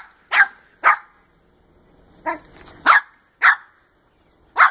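Dog barking: six short, sharp barks at irregular gaps, with quiet between them.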